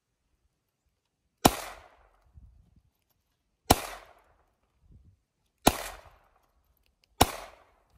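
Handgun fired four times at a slow, uneven pace, each shot a sharp crack dying away over about half a second.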